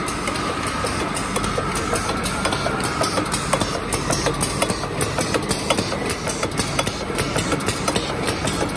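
Bouillon-cube wrapping and cartoning line running, with a steady mechanical hum and a thin whine. From about a second and a half in, the mechanism clacks rapidly and a little unevenly, a few clacks a second.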